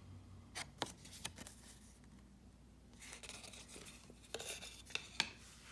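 A paper obi strip and a plastic CD jewel case being handled on a wooden table: a few light clicks and taps, then a short rustle with more clicks near the end.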